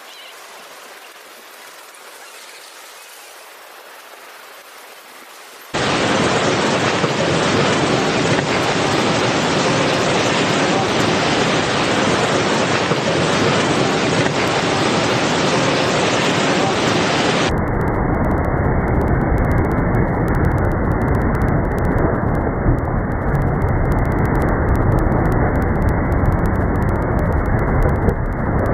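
Tsunami floodwater rushing: a loud, steady wash of noise that comes in abruptly about six seconds in after a faint hiss, and turns duller and deeper after a cut about eighteen seconds in.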